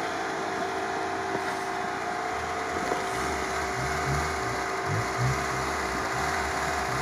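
Lada Niva (VAZ-2121) engine running at steady revs under load as its wheels spin in deep sand, the car stuck and not climbing out. A steady whine runs throughout, and an uneven low rumble joins about two seconds in.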